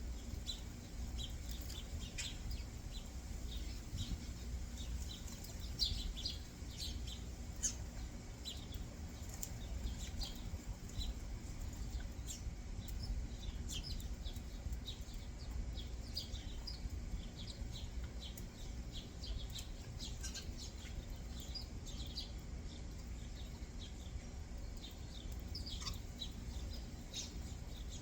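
Small backyard songbirds chirping, many short rapid chirps overlapping all through, over a low steady rumble.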